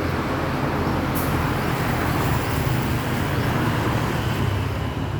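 A steady engine rumble with a continuous low hum.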